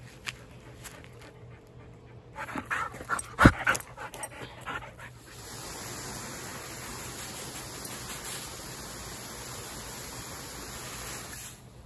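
A dog panting close by, with a sharp knock about three and a half seconds in. From about five seconds in, a garden hose sprays a fine mist with a steady hiss that stops abruptly near the end.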